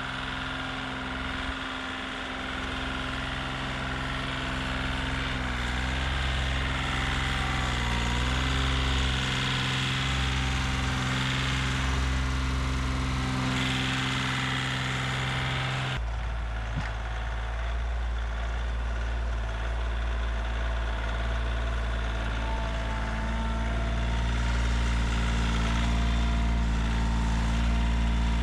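Engine running steadily at idle, with an abrupt change in its tone a little past halfway through.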